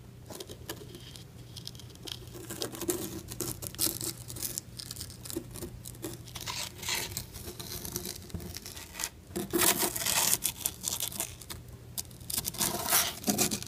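Irregular rustling and scraping of small plastic toy figurines being moved by hand over powdery fake snow, loudest in two clusters about two-thirds of the way through and near the end.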